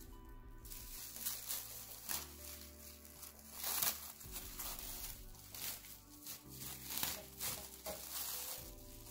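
Background music with held bass notes that change every second or two, over irregular crinkling and rustling of something being handled.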